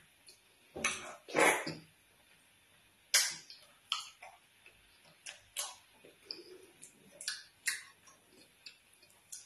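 Close-miked eating sounds of fufu with slimy ogbono soup: sticky wet mouth smacks and chewing clicks every second or so, with one longer, louder wet sound about a second and a half in.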